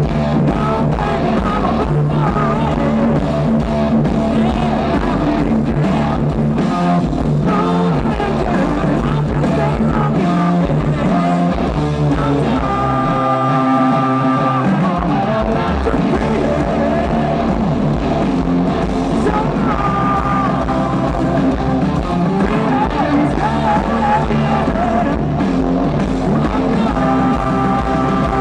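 Hard rock band playing live through a festival PA, heard from within the crowd: distorted electric guitars, bass, drums and keyboard. About halfway through, the bass and drums drop out for a couple of seconds, leaving held guitar notes, before the full band comes back in.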